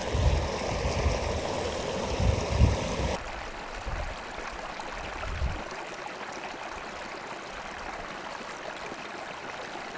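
Steady rush of flowing stream water. For the first three seconds it is louder and fuller, with low bumps, then it changes abruptly to an even, quieter flow.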